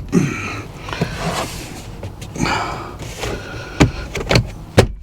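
Plastic dashboard trim and parts being handled and fitted: several sharp clicks and knocks, with scraping and rustling between them.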